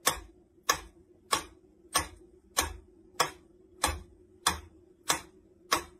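Mechanical pendulum metronome ticking steadily, ten sharp ticks at about one and a half a second.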